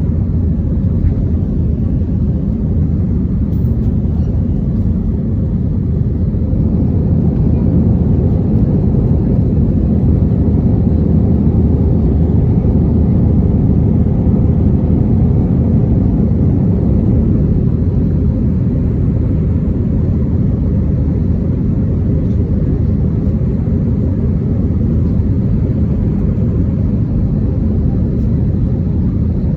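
Airbus A320 jet engines and airflow making a loud, steady low rumble. It swells slightly for several seconds about a third of the way in.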